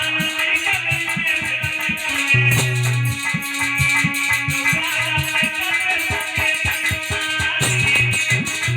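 Instrumental music: a plucked-string melody over a quick, steady beat of drum strokes and a shaker.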